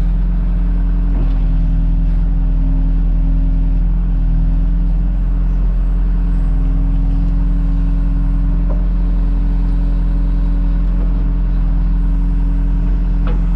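John Deere 310G backhoe's diesel engine running steadily, a constant low drone.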